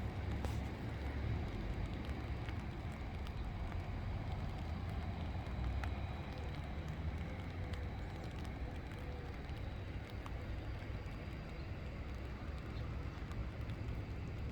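Wind buffeting the microphone: a steady, gusty low rumble with a faint hiss above it.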